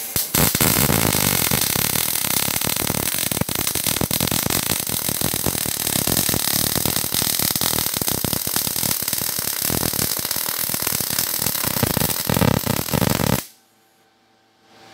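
MIG (MIG/MAG) welding arc crackling steadily as a 2F horizontal fillet bead is run on 1/8-inch (3.3 mm) plate, set at about 19.5 V and 135 A. The arc cuts off abruptly about a second before the end.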